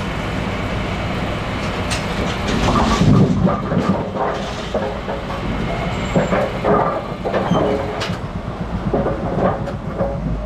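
Brunswick A-series pinsetter running through a second-ball cycle: a steady drive drone under the rattling and clanking of its sweep and deck mechanisms, with a couple of sharp knocks. The machine is cycling normally after a detector rod adjustment.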